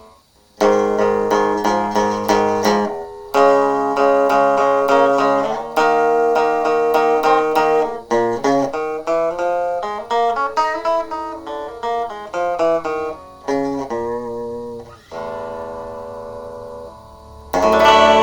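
Epiphone SG Junior electric guitar played through its practice amp: a few repeated strummed chords, then a quick run of picked single notes, and a final chord struck and left ringing near the end.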